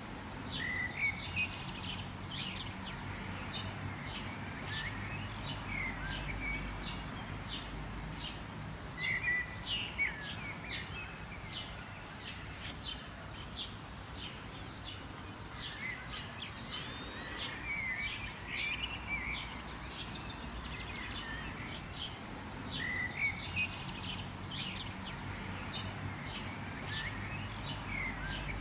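Several wild birds chirping and calling, with many short chirps and rising calls overlapping throughout, over a steady low background hum.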